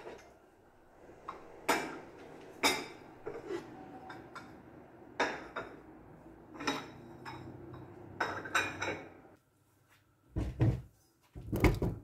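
Dishes and kitchen utensils clinking and clattering every second or two as they are handled, with two heavier thumps near the end.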